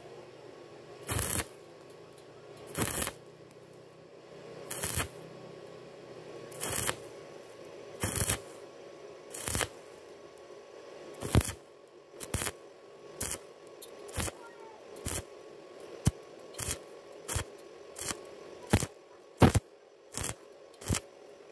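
Stick welding of thin square steel tubing with an electrode rod, done as stitch welding: the arc is struck again and again in short bursts, about every one and a half to two seconds at first, then shorter and about once a second. This on-off stitching lets the thin metal cool between bursts so it does not burn through. A faint steady hum runs between the bursts.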